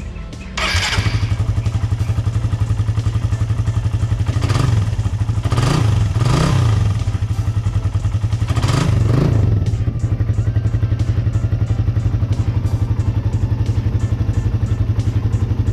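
Suzuki Raider 150's single-cylinder four-stroke engine starting about half a second in and idling with a steady pulsing beat. It gets a few short throttle blips in the middle, then settles back to idle. It is running on freshly changed 20W-50 oil, and the owner calls it smooth.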